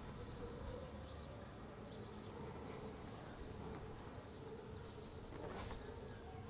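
Faint open-air village ambience: a steady low drone with brief high chirps now and then, and a single sharp click about five and a half seconds in.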